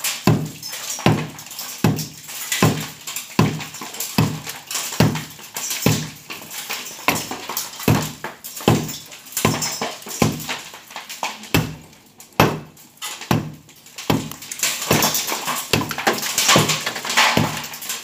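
Hammer and chisel knocking a hole through a concrete wall: steady, repeated metal-on-concrete blows, a little over one a second.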